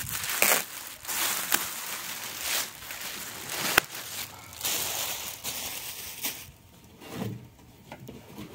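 Packaging rustling and crinkling as a boxed appliance is unwrapped and pulled free, with a few sharp snaps, the loudest near the middle. It dies down to scattered light handling sounds for the last couple of seconds.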